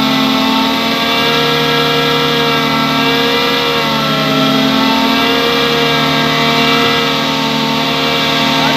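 Diamond wire saw cutting through a concrete slab: a loud, steady machine whine made of several tones whose pitch wavers slightly as the wire runs through the cut.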